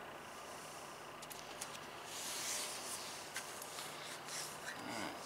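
A hand rubbing a vinyl decal's transfer paper down onto fiberglass trailer siding, making soft swishing strokes that start about two seconds in, after a few light clicks.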